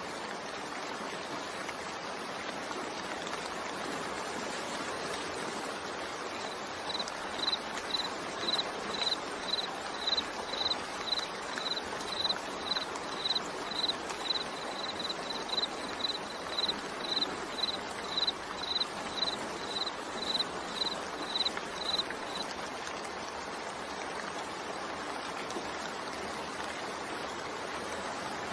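Steady rain sound, a continuous hiss of falling water. From about seven seconds in to about twenty-two seconds in, a short high chirp repeats about twice a second over it.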